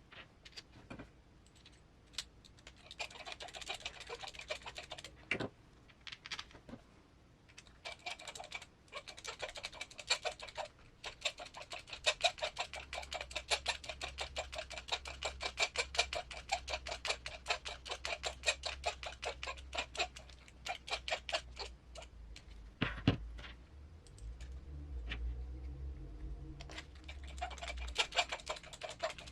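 Runs of rapid small clicks, about ten a second, in several long stretches, from hand work on an RC crawler's plastic transmission case as it is fitted and screwed together. A low hum joins in during the second half.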